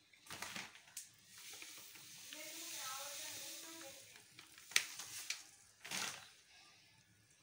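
Semolina (rava) sizzling faintly in hot oil in a kadai as it begins to roast, with a soft hiss that swells and fades in the middle. Two sharp clicks come near the end.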